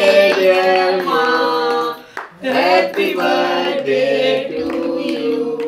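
Several voices singing a song together, holding long notes, with a short break about two seconds in.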